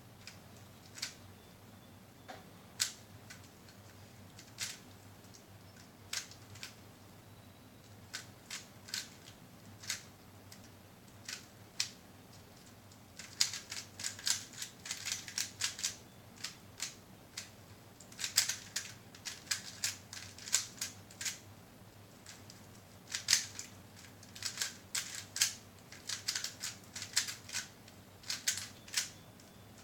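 3×3 Rubik's cube being turned by hand during a timed solve: its plastic layers click. Single turns come a second or two apart at first, then quick flurries of clicks with short pauses between them.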